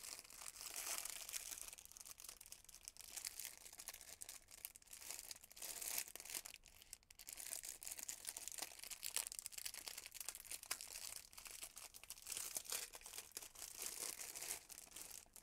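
Faint crinkling of thin plastic bags being handled: a strip of small zip-lock baggies of diamond painting drills being worked out of its outer plastic bag, with many small crackles throughout.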